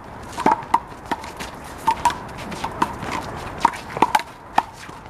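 A handball rally: about ten sharp smacks at irregular intervals as the rubber ball is struck by hand and bounces off the wall and pavement, with players' footsteps on the court.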